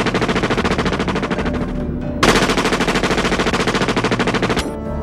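Automatic rifle fire in long rapid strings of shots, with a brief break about two seconds in, then cutting off just before the end as music comes in.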